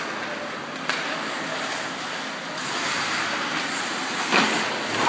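Ice hockey play: a steady hiss of skates scraping the ice, with a small sharp knock about a second in and a louder crack a little past four seconds.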